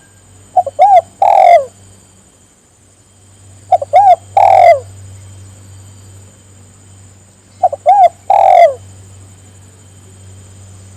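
Spotted dove (tekukur) cooing: three calls about four seconds apart, each two short coos followed by a longer coo that falls in pitch. A steady low hum runs underneath.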